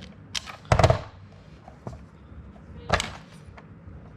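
Two sharp knocks, a little under a second in and about three seconds in, with a few lighter clicks of handling between them.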